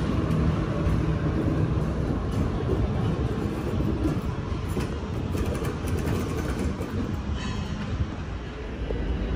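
Sydney Trains Waratah double-deck electric train running past, with a steady rumble of wheels on rail. The last car clears about four seconds in and the rumble eases off, with a few clicks near the end.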